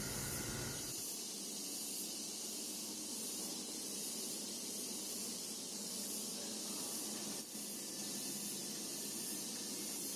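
Steady faint hiss, mostly high-pitched. A low hum underneath drops away about a second in.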